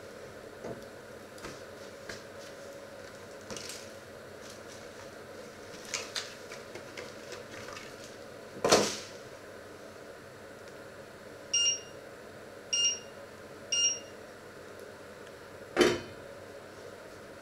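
Fish fingers frying in a steel pan with a steady low sizzle, over a few small clicks and a sharp knock about halfway through. Three short electronic beeps come about a second apart, then a metal pot lid clatters down onto the pan near the end.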